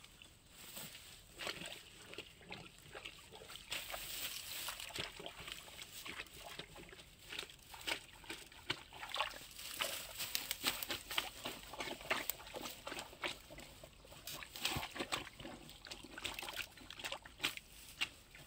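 Dry grass and brush crackling and rustling under a person's feet and hands, in irregular bursts, as he climbs down a grassy, muddy canal bank.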